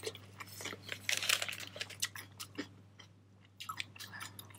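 Close-up chewing of a mouthful of hamburger with crisp shredded lettuce: irregular wet, crunchy bites and mastication, pausing briefly about three seconds in.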